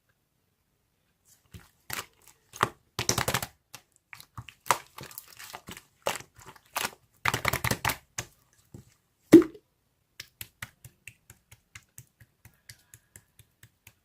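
Rustling, crinkling handling noise with sharp clicks and one loud knock about two-thirds of the way in, then an even run of soft clicks, about two or three a second.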